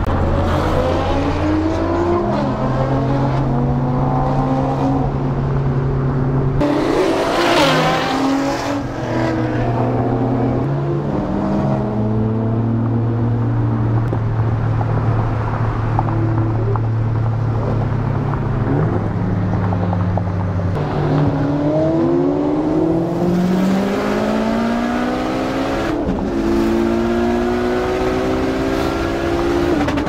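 Mitsubishi Lancer Evolution X's turbocharged four-cylinder engine, tuned to about 800 wheel horsepower, pulling hard through the gears. Its pitch climbs and drops back at each shift, over a steady low drone, with a loud rushing noise about seven to nine seconds in.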